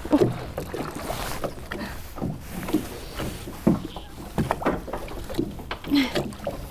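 Water lapping against the hull of a small fishing boat, with irregular short knocks and rustles as fishing line is hauled in hand over hand.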